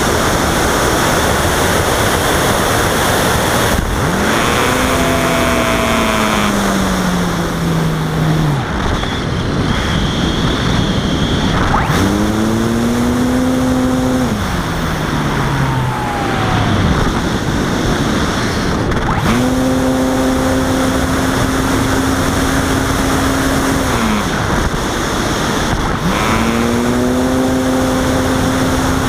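Onboard audio of a Robbe Arcus Sport electric RC glider in flight: a steady rush of airflow on the microphone, with the electric motor and propeller switched on four times. Each run is a whine of a few seconds, some sliding down in pitch before cutting off.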